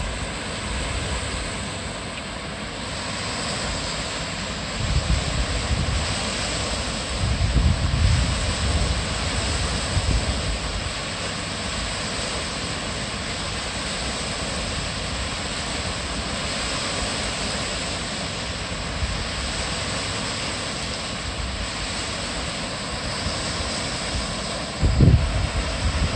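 Steady rush of water spilling over a small weir, with wind buffeting the microphone in low gusts a few seconds in, around eight seconds, and again near the end.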